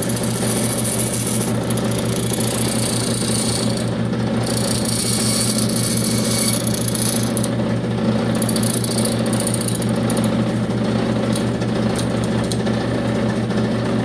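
Reciprocating power saw running steadily with a fast, even buzz while cutting out a wooden figure. The higher-pitched cutting hiss comes and goes every few seconds as the blade works into the wood.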